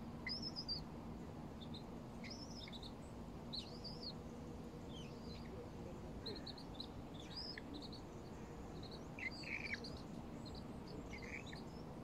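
Birds chirping: short, high, arched call notes come every second or so, with small clusters near the start, around the middle and near the end, over a faint steady low hum.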